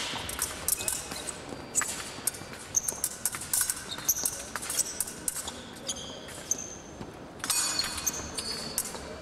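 Épée fencing bout: blades clicking and clashing with short high metallic rings, and fencers' feet stamping and shuffling on the piste. The clashes come thickest near the end.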